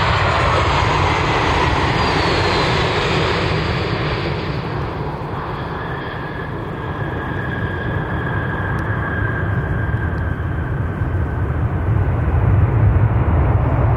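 Boeing 737 jet engines passing close on landing: a loud rush with a whine that falls in pitch over the first few seconds. The noise then eases to a steady high tone over a low rumble, building again near the end.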